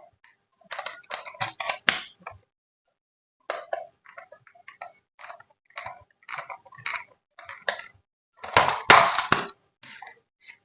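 Hands handling plastic toy parts and packaging: a run of short clicks, clinks and rustles, with a longer, louder rustle about eight and a half seconds in.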